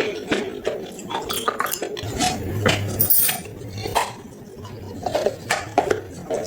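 Baked clay pot pieces being bitten and crunched: a rapid, irregular series of sharp cracks and clinks.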